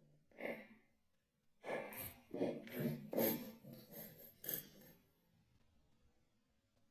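Kinetic sand being squished: a short crunch about half a second in, then a run of several crunchy, rasping squishes over about three seconds.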